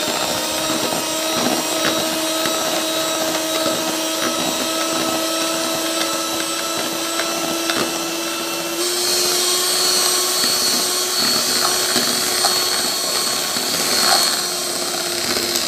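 Electric hand mixer running steadily, its beaters whipping cream in a bowl, a steady motor whir. About nine seconds in, the pitch steps slightly higher and brighter.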